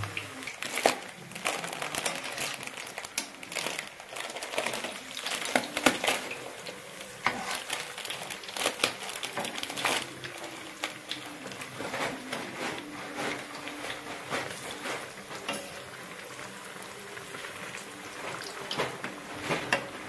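Batter-coated bread pakoras deep-frying in a kadai of hot oil: a steady sizzle and crackle, with sharp clinks and scrapes of a metal spoon turning them in the pan.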